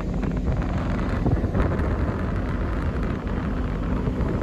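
Wind buffeting the microphone on the open deck of a moving ferry, over the steady low rumble of the ship.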